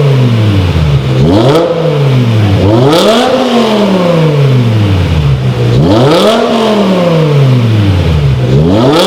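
BMW M6's 5.0-litre V10 engine and exhaust being revved repeatedly: four sharp rises in pitch, each falling back slowly toward idle.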